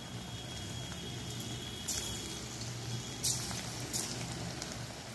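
Flour-coated cauliflower florets deep-frying in hot oil in a steel kadai: a steady bubbling sizzle with a few sharp pops.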